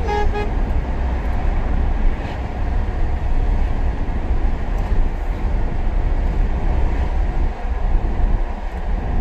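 Steady road and engine noise inside a moving car, deep and even throughout.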